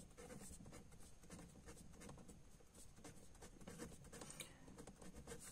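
Faint scratching of a marker pen writing letters on paper, in short irregular strokes.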